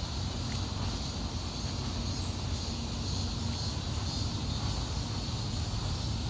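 Outdoor park ambience: a steady low rumble with a steady high-pitched drone above it, with no distinct events.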